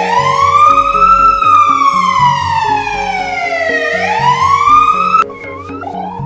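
Emergency vehicle siren wailing, its pitch sliding slowly down and back up over several seconds, over background music. About five seconds in it cuts to a quieter siren rising again.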